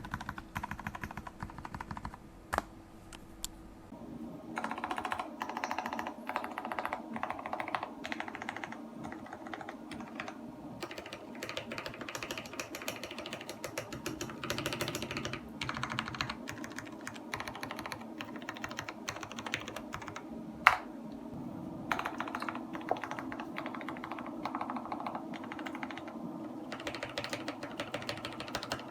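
Modifier keys on a mechanical keyboard with Jailhouse Blues switches being typed on rapidly, a steady run of key clacks. About 4 s in the stock tactile switches are heard; about 22 s in the same keys are heard with the switches sanded into linears, the tactile bump removed.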